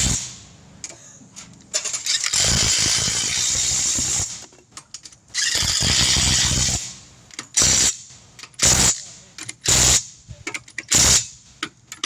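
Impact wrench running lug nuts onto a truck wheel: three longer runs of a second and a half to two seconds, then five short bursts about a second apart as the nuts are snugged down.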